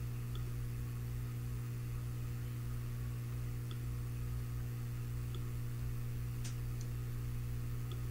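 Steady low electrical hum, with about six faint clicks of a computer mouse scattered through it as menu items are clicked, the clearest one about two-thirds of the way in.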